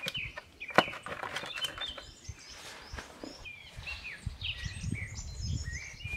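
Small wild birds chirping and singing repeatedly, with twigs crackling and one sharp snap about a second in as bark is pushed into a frame of leaning sticks.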